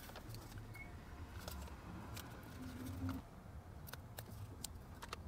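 Quiet handling noise: faint scattered clicks and taps as small parts are handled, with a brief low hum a little before the middle.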